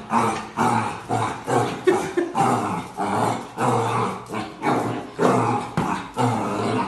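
A dog vocalising in a rapid run of short growling barks, about two a second.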